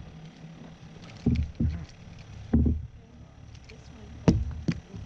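About five dull thumps and knocks on a boat, irregularly spaced, the sharpest one a little past four seconds in.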